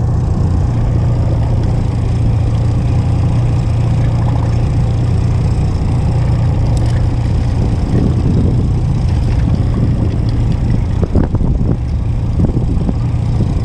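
Boat outboard motor running steadily with a constant low hum, with a few faint clicks over it.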